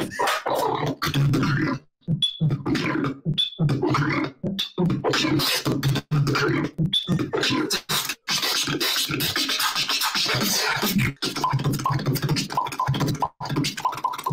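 A person beatboxing, imitating DJ record scratches with his mouth in a fast, choppy rhythm, heard over a video-chat connection that cuts out briefly again and again.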